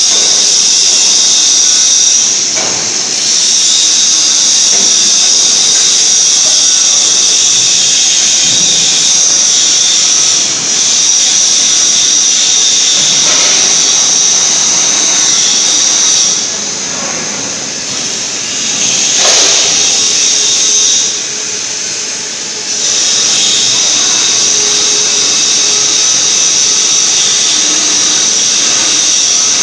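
Steady, loud high-pitched whine and hiss of factory machinery, dropping away briefly a few times, with a few light knocks.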